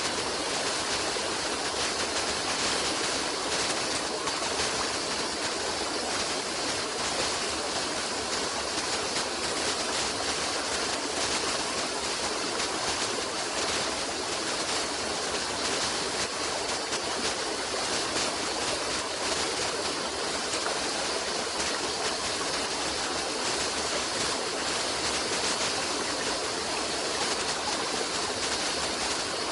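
Steady rushing of flowing stream water, an even hiss with no breaks or separate events.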